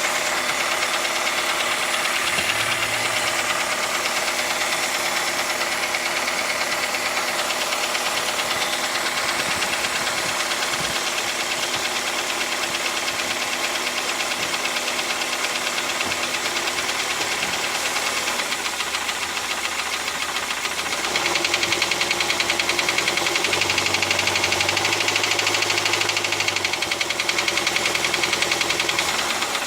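Toyota 3SZ 1.5-litre four-cylinder engine idling with a fast, steady knock. About two-thirds of the way through it gets louder. The cause is unknown: some mechanics blame valve clearance, others the pistons.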